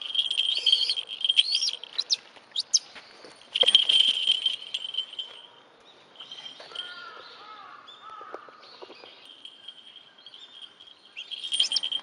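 Birds chirping and calling, with quick rising chirps and a high, steady ringing tone that comes and goes. It is louder in the first half and quieter from about halfway, then picks up briefly near the end.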